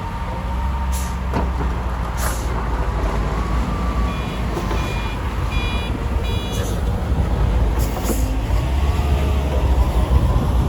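Heavy diesel snow-removal machinery running with a deep, steady engine rumble. A reversing alarm beeps four times, evenly spaced, in the middle, and a few short hisses cut through.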